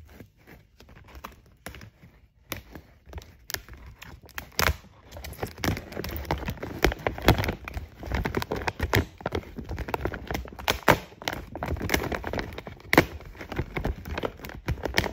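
Woven plastic rice sack crinkling and crackling as it is handled and pressed down into shape, with many small irregular clicks that are sparse at first and get busier after a couple of seconds.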